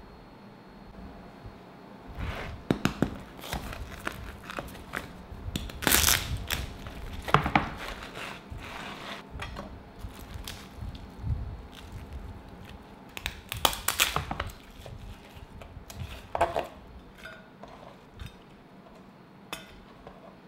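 Crispy roast pork belly skin crunching and crackling as it is cut with a knife on a wooden board and torn apart by hand. The crunches come in short irregular clusters every few seconds, loudest about six seconds in and again around fourteen seconds.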